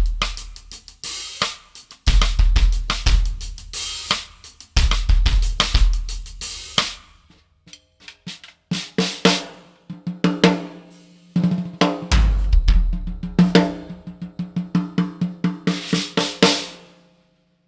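Drum kit grooves built around a K Drums 14x8 rimu-shell snare with an Evans HD Dry batter head, with bass drum, hi-hat and cymbals. Around the middle the kick drops out for a sparser passage of ringing drum hits, then full-kit playing returns and stops just before the end.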